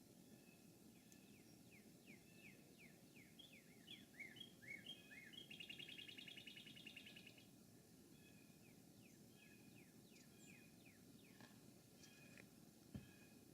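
A songbird singing faintly: a string of quick down-slurred notes, a rapid trill about halfway through, then more slurred notes. A faint low rumble runs underneath, with a single click near the end.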